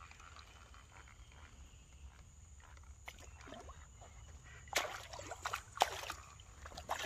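Fish striking a topwater lure at the water surface: a loud splash about five seconds in and another about a second later, with smaller splashes before them.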